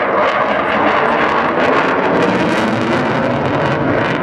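Eurofighter Typhoon's twin EJ200 turbofan jet engines, a loud steady roar with a crackling edge as the fighter flies overhead.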